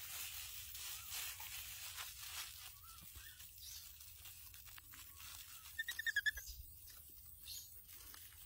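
Baby monkey chewing food, with soft crunching and crackling clicks. About six seconds in comes a brief run of quick, high chirps.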